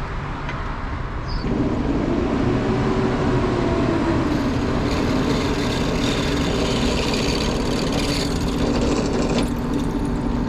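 Drill press running with a 9/64 inch bit, drilling a hole. A steady motor hum comes up strongly about a second and a half in and holds, and from about halfway through a higher hiss of the bit cutting is added.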